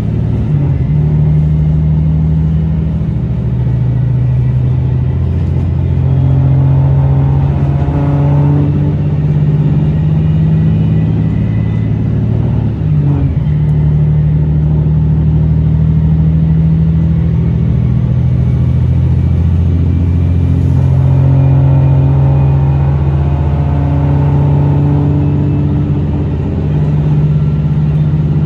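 Inside a Tosa Kuroshio Railway 9640-series diesel railcar under way: the diesel engine and running gear make a steady low drone, its pitch shifting several times as the engine load changes, with a brief dip about halfway through.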